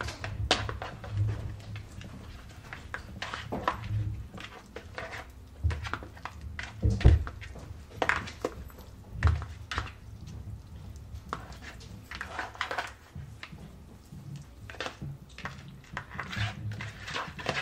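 Seasoned raw lamb chops being mixed by hand in a bowl: irregular soft thunks and clicks of handling, with one louder thump about seven seconds in.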